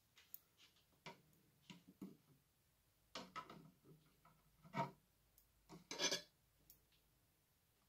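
Faint handling noise: scattered light taps and short scrapes, about seven in all, the loudest two about five and six seconds in.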